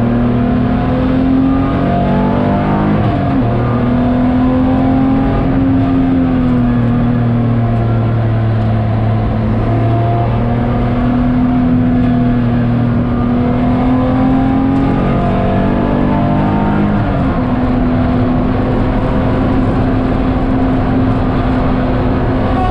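BMW E46 330's straight-six engine running under load inside the car's cabin while lapping. The engine note drifts slowly up and down, with sharp pitch changes about three seconds in and again about seventeen seconds in.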